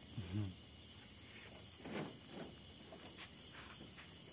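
Night insects chirring steadily in a high-pitched chorus. A short low vocal sound comes near the start, and a rustling scrape about two seconds in is followed by a few faint clicks.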